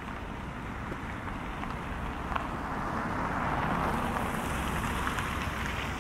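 Outdoor street noise recorded on binaural microphones: a vehicle passing, its tyre hiss swelling and fading through the middle, with a few faint footstep taps.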